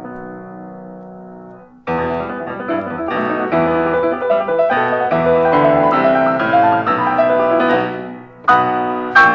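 Instrumental piano music. Held notes die away, then a busy passage of many notes starts abruptly about two seconds in, fades near the end and is followed by new chords.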